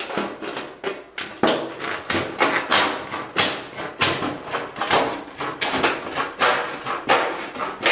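Straight-cut tin snips cutting along 6-inch galvanized steel round duct: a steady series of sharp sheet-metal snips, about three every two seconds.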